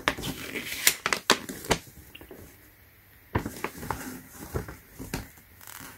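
Paper rustling and crackling as a printed owner's manual is handled and opened, its pages turning: irregular short crackles in two spells, with a brief swish near the end.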